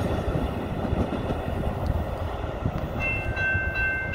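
Metra commuter train rumbling past over the rails. About three seconds in, a train horn sounds a chord in several short blasts.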